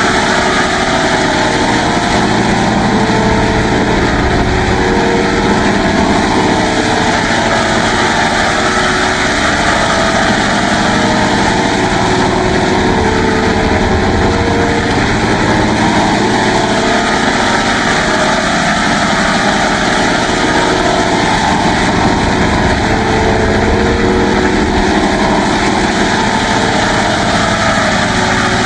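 Synthetic effect sound from FL Studio's Vocodex vocoder: a continuous, dense electronic drone with held tones that change every few seconds.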